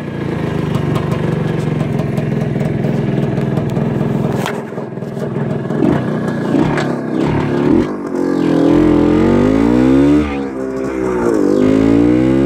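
The single-cylinder two-stroke engine of a 1971 Bultaco Matador MK4, fitted with a new cylinder and piston, running as the bike is ridden. It holds a steady note at first. Past the middle it revs up and falls back in pitch twice as the bike accelerates.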